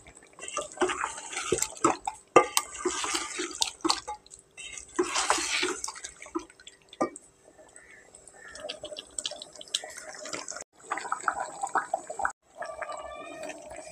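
Wooden spoon stirring chicken pieces as they fry in a thick masala in a pot. There is a wet sizzle, with irregular scrapes and clicks of the spoon against the pot, busiest in the first half and quieter later.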